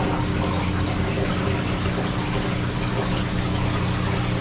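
Saltwater reef aquarium running: steady splashing, trickling water over a constant pump hum.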